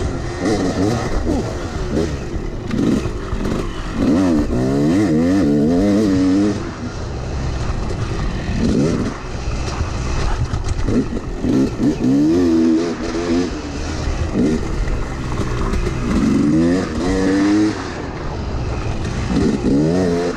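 Dirt bike engine revving up and dropping back again and again as the bike is ridden through turns and straights, with several strong climbs in pitch.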